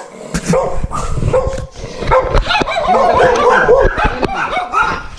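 Dogs barking and yapping in quick, overlapping succession, the bark of dogs agitated by a stranger's presence.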